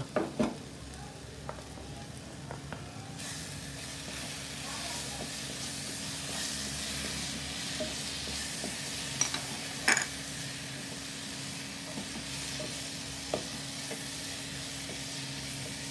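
Onion-tomato masala with freshly added spice powders sizzling in a non-stick kadai while a wooden spatula stirs and scrapes it; the sizzle grows louder about three seconds in. A few sharp knocks of the spatula against the pan, the loudest about ten seconds in, over a steady low hum.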